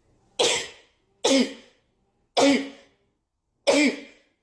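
A person sneezing four times in quick succession, about a second apart, each a sudden sharp burst that trails off with a short voiced sound. The sneezes are set off by dust raised by cleaning.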